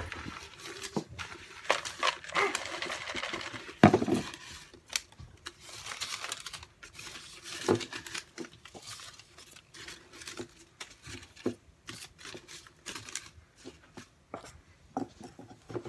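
Folded paper name slips rustling and crinkling as a hand stirs them inside a bucket, with irregular small clicks and a louder knock about four seconds in.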